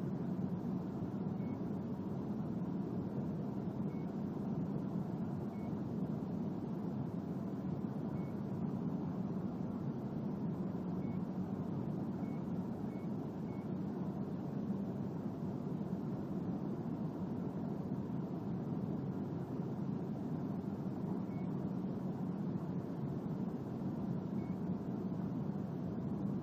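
Nakami DV 11140 portable evaporative air cooler's fan running steadily. About ten short, high beeps from its control panel sound as its buttons are pressed.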